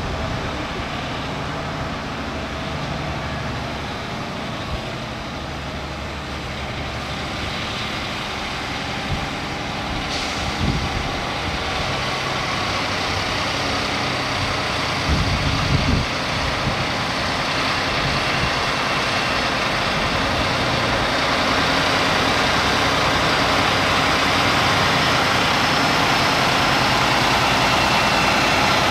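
Heavy-haul MAN tractor unit's diesel engine running at low speed as it hauls an oversized load past on a many-axle modular trailer, with tyre noise from the trailer's many wheels. The sound grows steadily louder as the rig comes close.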